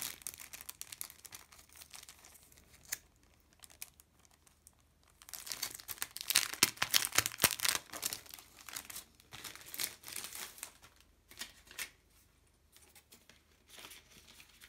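Crinkling and rustling of a plastic sheet of self-adhesive rhinestone stickers being handled and peeled, busiest and loudest through the middle few seconds, with scattered lighter rustles and clicks before and after.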